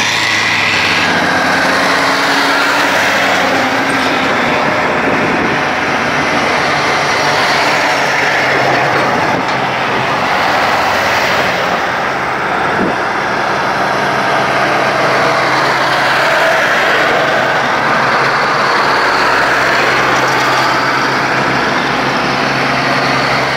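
Antique Brockway trucks driving past in a convoy, a steady engine drone with tyre and road noise. The engine hum gets heavier in the last few seconds as another old Brockway truck approaches.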